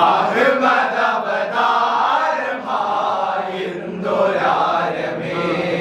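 Group of men chanting a Kolkali stick-dance song in chorus, in short repeated phrases.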